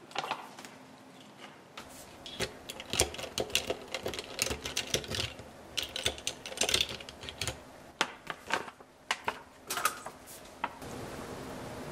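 Ice cubes clinking and rattling against a straw and glass as the straw is pushed down into a glass packed with ice and blue lemonade: a rapid, uneven run of clicks. There is so much ice that the straw won't go in.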